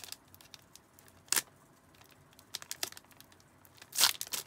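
Foil trading-card pack wrapper handled and torn by hand: mostly quiet, with one sharp crackle about a second and a half in, a few faint crinkles, and a louder crinkling burst near the end.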